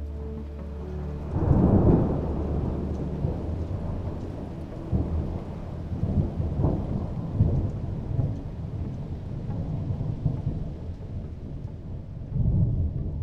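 Thunder rumbling over steady rain, with loud swells of rumble about a second and a half in and again near the end.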